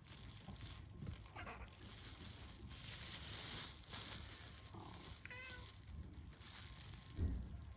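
Two brief high-pitched animal calls, one about a second and a half in and a shorter one about five seconds in, over faint rustling.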